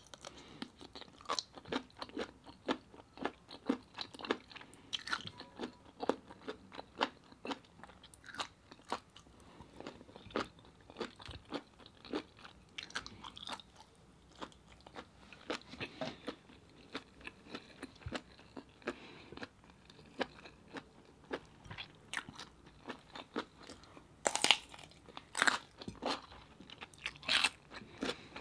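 Close-miked chewing: a steady run of wet mouth clicks and smacks as thick cooked cuttlefish and rice are eaten. A few louder, crunchier bites come near the end.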